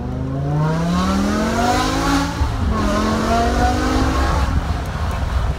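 BMW E60 M5's V10 engine through a straight-piped exhaust, heard from inside the cabin as the car accelerates. Its pitch climbs for about two seconds, drops back at an upshift and climbs again, then the tone fades into a rough rumble near the end.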